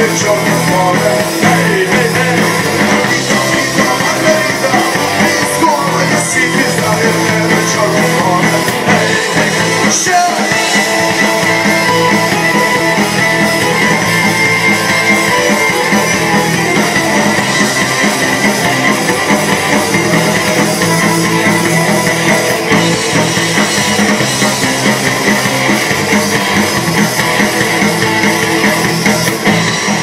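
Live folk-rock band playing loud and without a break: electric guitars, bass guitar, drum kit and button accordion.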